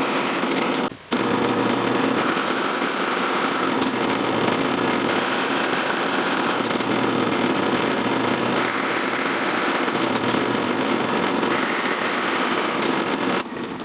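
Drill press running and boring through wood, a steady motor noise with a dense crackle of cutting, briefly cut off about a second in and again near the end.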